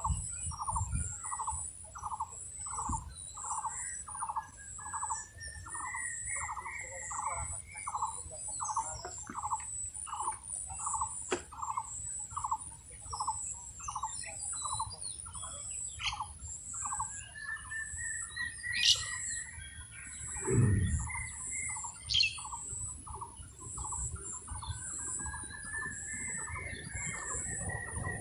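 Birds calling: one bird repeats a single short note about twice a second without a break, while other calls rising in pitch come in over it a few times.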